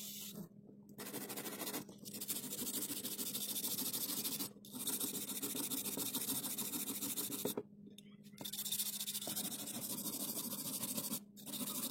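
Kitchen-knife blade being sharpened against an abrasive in long scraping passes, each about three seconds, with short pauses between them. The blade is being put to an edge for use as an electrician's knife.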